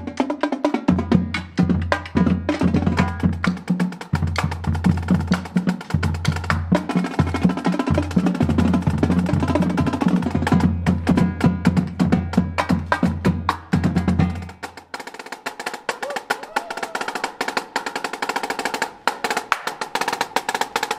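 Marching drumline playing a fast cadence of rapid strokes and rolls on marching tenor drums and snare drum. A low steady rumble underneath stops about two-thirds of the way through, and the drumming goes on a little lighter.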